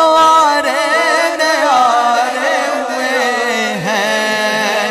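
A male naat singer's voice through a microphone, holding a long wordless melismatic line. It wavers and ornaments for about the first two seconds, then settles into a steadier held tone.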